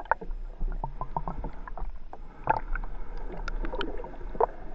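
Muffled underwater sound picked up by a GoPro submerged in its waterproof housing: a steady low rumble with scattered soft clicks and knocks. The loudest knock comes about two and a half seconds in.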